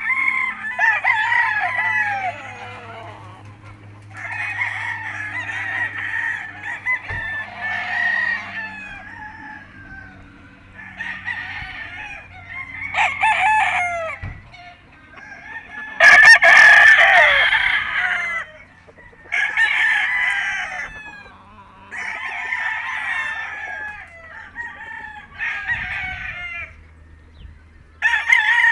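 Roosters crowing over and over, about ten crows, one every two or three seconds, some overlapping. The longest and loudest crow comes about halfway through.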